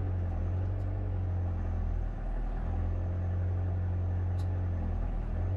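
1996 Timberjack 810 forwarder's diesel engine running steadily under the loader's load, heard from inside the cab as a low, even drone.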